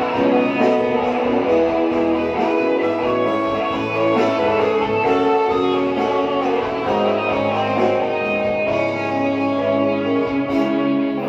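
Karaoke backing track playing an instrumental break between verses, with guitar to the fore.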